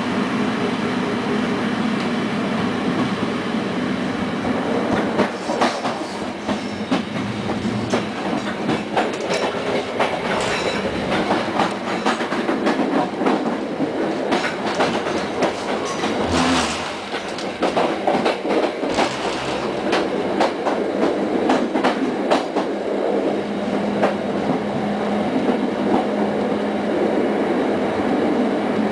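Passenger train coach running along the track, heard from inside the carriage: a steady rumble and hum, with irregular clatter of the wheels over the rails through the middle stretch.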